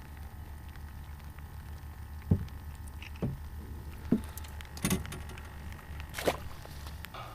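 Scattered knocks and clunks of gear being handled in a fishing boat, about five of them, the sharpest a little over two seconds in, over a steady low hum.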